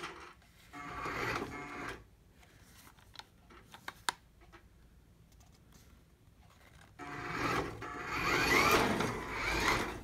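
Toy RC car's small electric drive motor and gears whirring in two bursts as the throttle is pressed and the rear wheels spin: a short one about a second in, then a longer, louder one from about seven seconds on, with faint clicks between.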